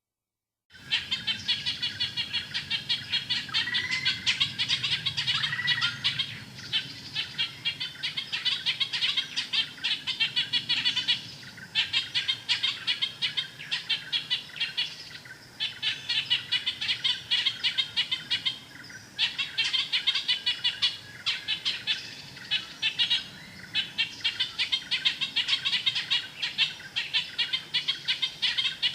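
Ochraceous bulbul calling: fast, harsh chattering notes in bursts of several seconds, separated by short pauses. A couple of short whistles come about four to six seconds in.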